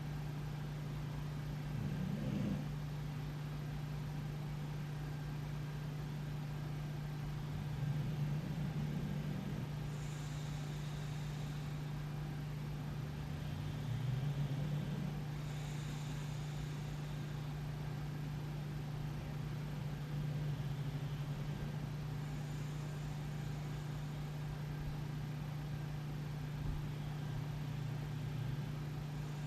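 English bulldog snoring in its sleep, a slow snore about every six seconds, over a steady low hum.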